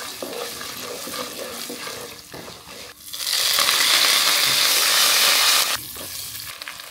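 Tempering for lemon rice frying in oil in a non-stick pan: peanuts, urad dal and dried red chillies sizzle lightly while a wooden spatula stirs. About three seconds in, curry leaves go into the hot oil and it sizzles much louder for a couple of seconds, then cuts off suddenly.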